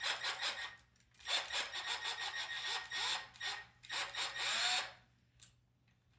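Small electric screwdriver on a low clutch setting driving an M3 screw into a nut, running in about four short spells with the motor pitch sliding as it speeds up and slows.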